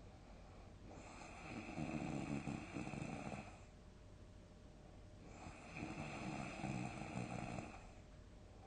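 A sleeping person snoring heavily: two long snores, each lasting about two and a half seconds, with a quieter pause of about two seconds between them.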